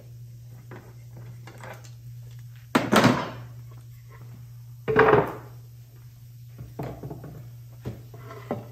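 A bar clamp being taken off and walnut boards moved on a workbench: two loud clunks, about three and five seconds in, then a few lighter knocks.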